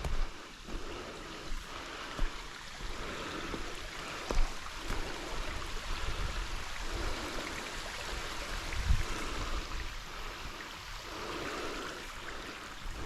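Steady rush of creek water running through a shale gorge, with a few sudden low thumps now and then.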